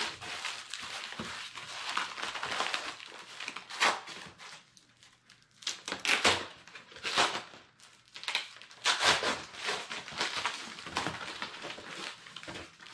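Foam packing and a plastic bag rustling and crinkling as they are pulled apart by hand, with sharp crackles and light scrapes, easing off briefly about five seconds in.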